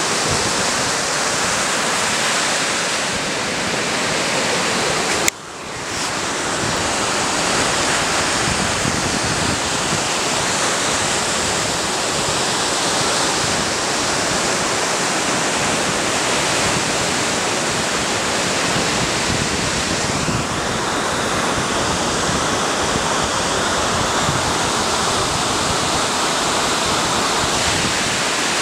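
Ocean surf washing up a sandy beach, a steady rush of noise. About five seconds in the sound cuts out abruptly and fades back in over a second.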